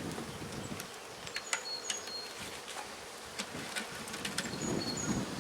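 Honey bees buzzing around an open hive, with scattered light clicks from the wooden hive frames being handled.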